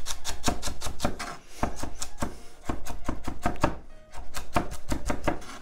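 Chef's knife rapidly chopping celery on a wooden cutting board: a quick, even run of knife strikes, about six a second, broken by a few brief pauses.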